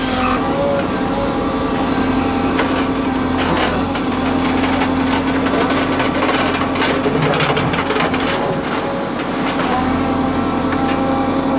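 JCB 3CX backhoe loader's diesel engine running steadily, with a run of knocks and clatter through the middle.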